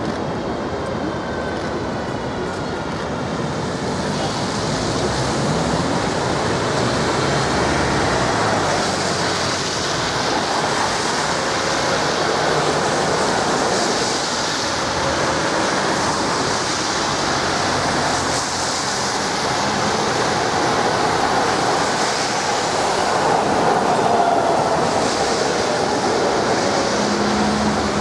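Street traffic on a rain-wet boulevard: a steady hiss of tyres on the wet road mixed with trams rolling along the rails, with faint whines that rise and fall now and then.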